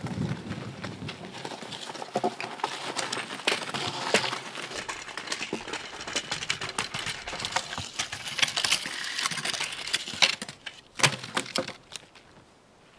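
Footsteps crunching on dry forest ground, with dead twigs and branches crackling and snapping as firewood is gathered by hand. A few louder knocks of wood come near the end.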